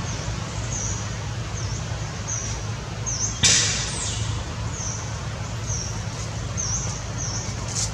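Outdoor ambience with a small high chirp repeating about once every second over a steady low hum. About three and a half seconds in comes one brief, loud rustling burst.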